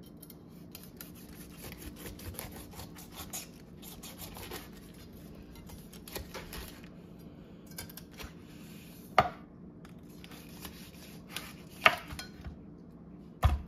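Kitchen knife sawing through a whole pineapple, rind included, on a wooden cutting board: a run of quick rasping strokes through the tough skin, then three sharp knocks of the blade hitting the board in the last few seconds.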